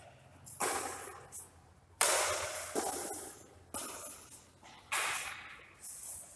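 Badminton rackets hitting a shuttlecock back and forth in a rally: a sharp hit roughly every second, each ringing on briefly in the echoing hall.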